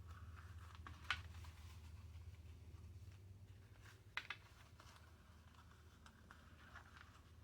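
Near silence with a low steady hum, broken by quiet handling of paper and elastic: faint rustling, a sharp click about a second in, and two quick clicks a little after four seconds.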